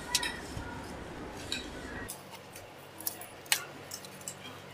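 Eating sounds: a few sharp clicks and crackles of crisp masala dosa being torn by hand and chewed.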